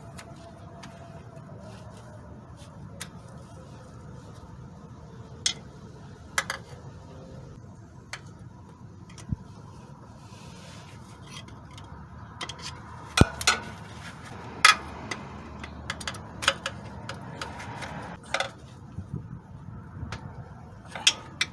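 Scattered sharp metallic clicks and clinks as a CV axle with a fresh snap ring is worked into place until it locks; the clicks come more often in the second half.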